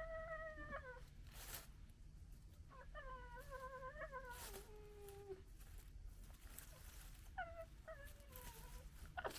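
Cat meowing faintly in drawn-out calls, a long one of about two and a half seconds in the middle that drops in pitch at its end, then shorter ones near the end, with a few sharp clicks between them.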